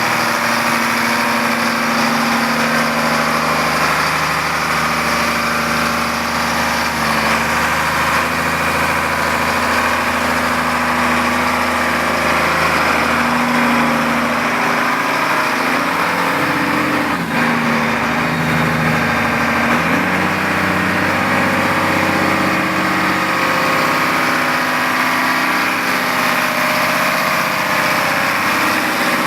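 Diesel engine of a 2005 Massey Ferguson 8480 tractor running steadily, its engine speed shifting a few times about halfway through before settling again.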